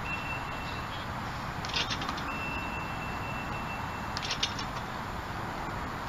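Steady outdoor background noise, a low even rumble like wind on the microphone, with a few faint short clicks or knocks a little under two seconds in and again after about four seconds, and a thin high steady tone.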